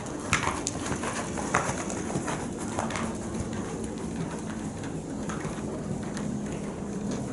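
A horse's hoofbeats on sand arena footing, with a few sharp knocks in the first three seconds, and a bird calling in the background.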